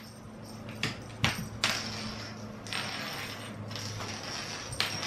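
A small cat toy on a wire tapping and scraping on a wooden floor: a few sharp clicks about a second in and another near the end, with stretches of scraping hiss between them.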